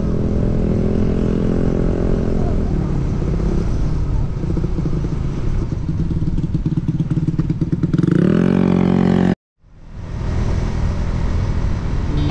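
Motorcycle engine running steadily while riding. About eight seconds in, the engine note rises as it accelerates. The sound then cuts off completely for a split second and fades back in.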